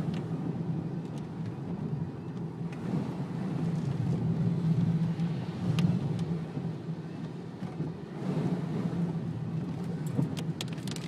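Car driving in heavy rain, heard from inside the cabin: a steady engine and road rumble with a hiss of tyres on the wet road, and scattered sharp ticks.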